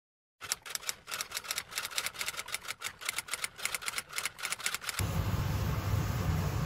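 Rapid, uneven typewriter-like key clicks, several a second, that stop about five seconds in. A steady hiss with a low rumble then takes over as garlic fries in oil in a wok.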